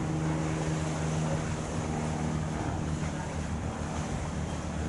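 A boat's engine drones steadily at one pitch, with wind buffeting the microphone and water rushing.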